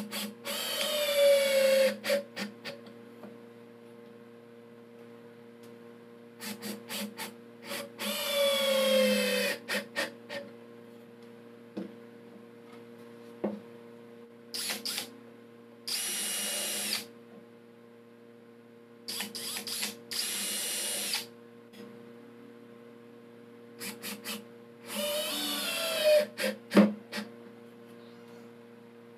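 Cordless drill-driver driving screws into plywood in about five short runs, its motor whine dropping in pitch as each screw bites and seats, with small clicks of handling between runs.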